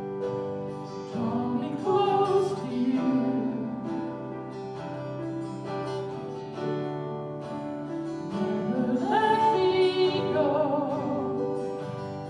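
Worship music: an acoustic guitar strumming held chords while a woman sings two long, wavering phrases, one about a second in and one about two thirds of the way through.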